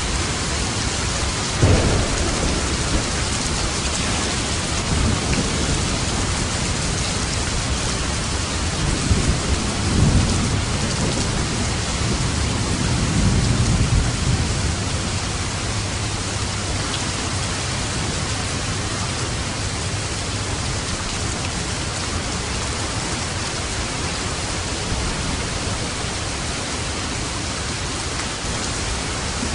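Steady heavy rain drumming on a roof, with a sharp clap of thunder near the start and low rolling thunder rumbling twice in the middle.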